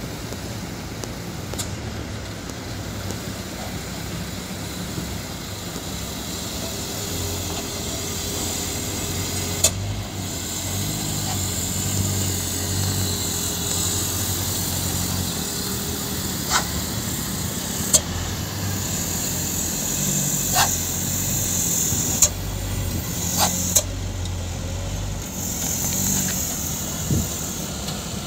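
Sand-laden diesel dump trucks running on a dirt road, engine note rising and falling as they work, with a few sharp clacks along the way.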